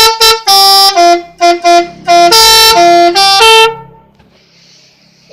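Bus telolet horn, a multi-tone musical horn, playing loud short toots and then a tune of held notes at changing pitches. It stops near four seconds in, leaving a faint low hum.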